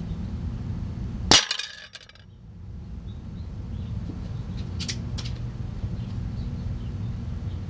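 A .22 Benjamin Marauder PCP air pistol shot, with its pellet striking a stack of heavy steel food cans. There is one sharp metallic crack about a second in, with a rattling ring that dies away within a second. About 3.5 s later come two fainter sharp clicks a third of a second apart.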